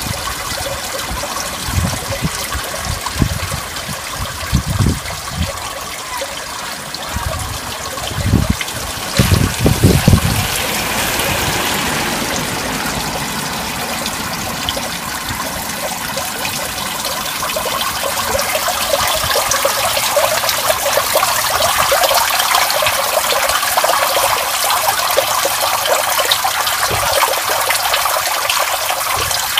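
Stormwater running over asphalt and gravel and trickling down into a cast-iron street drain: a steady rushing, splashing flow of water. A few low rumbling bumps come in the first ten seconds, and the flow grows a little louder in the second half.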